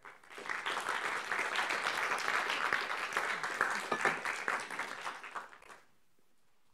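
Audience applauding for about six seconds, dying away near the end.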